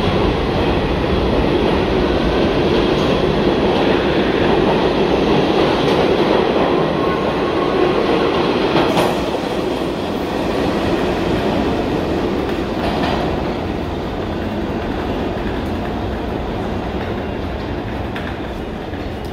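New York City subway train of R68A cars running past the platform in an underground station: a loud, steady wheel-and-rail rumble with clacking over the rail joints. About nine seconds in it eases off, and it fades to a lower, receding rumble as the train clears the station.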